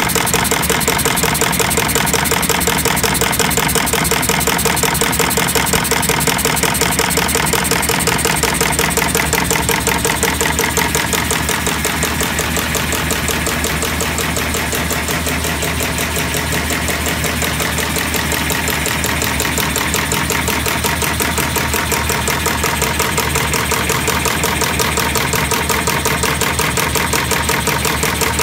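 Sisma BKF/XL laser bismark chain-making machine running, its mechanism cycling in a fast, even rhythm of mechanical strokes as it forms chain.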